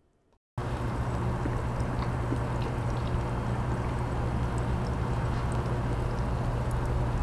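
Two-layer mixture of hydrochloric acid and benzyl alcohol boiling under reflux in a 1-litre round-bottom flask on a heating mantle: a steady bubbling with small pops over a low hum. The sound cuts in about half a second in.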